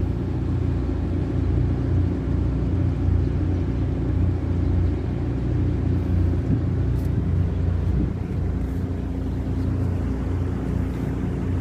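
A purse seine fishing boat's engine running steadily: an even low rumble with a constant hum.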